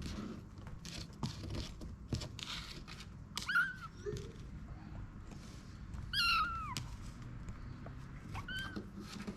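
Five-week-old kitten meowing about four times, begging to come out of its box; the loudest and longest meow, about six seconds in, falls in pitch. Light scratching and rustling clicks come in the first few seconds.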